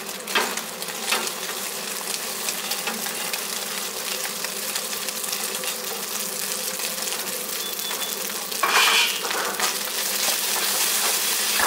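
Cooked rice and scrambled egg sizzling steadily in a hot wok, with a few short metal ladle clinks near the start and a louder scrape about nine seconds in as the ladle starts stirring the rice.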